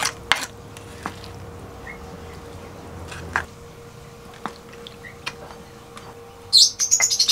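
Spoon clicking and tapping against a clay pot and a stone mortar while coconut milk and ground spice paste are scooped between them. Near the end there is a short, loud, rough scrape on the stone mortar.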